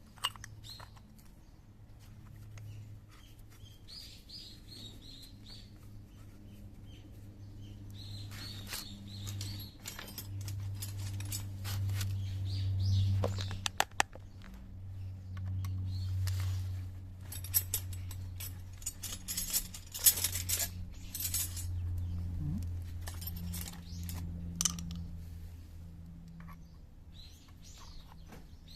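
Metal tools and parts clinking, tapping and scraping in scattered bursts during work on a scooter's transmission gearbox, over a steady low hum.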